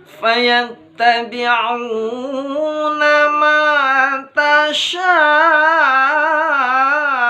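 Qur'anic recitation (tilawah) in the melodic style: a single voice draws out long ornamented notes that waver up and down. It breaks off briefly twice, a little before one second in and again just after four seconds.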